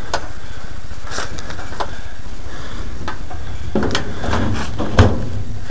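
Crackling handling noise over a steady low rumble, with scattered knocks and one loud thump about five seconds in.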